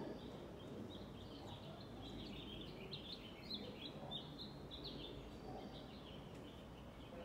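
Faint birds chirping in quick, twittering bursts over a low background rumble.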